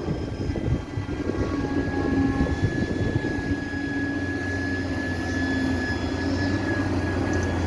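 Cat 320D hydraulic excavator running with a steady low diesel drone and a thin, steady high whine over it.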